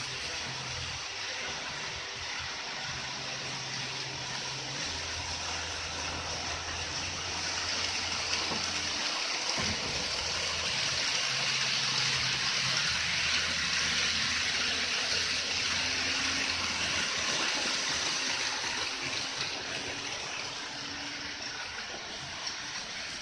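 Model train of blue Hokutosei sleeper cars running on layout track: a steady rushing rattle of wheels on rail that swells as the cars pass close by, loudest about halfway through, then eases off.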